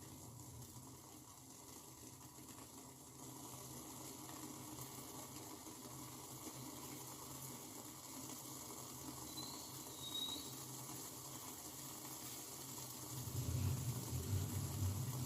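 Kadha (a spiced herbal decoction) boiling in a pan on a gas stove: a steady bubbling hiss, with a low rumble that grows louder near the end.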